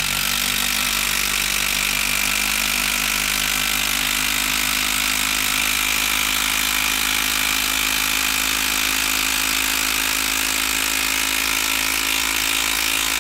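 Makita DT03 12-volt brushed impact driver hammering continuously as it drives a screw under load, at an even level throughout.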